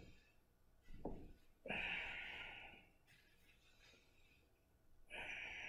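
A woman breathing hard through a slow core exercise: two audible breaths, one about two seconds in and one near the end, with a brief soft sound about a second in.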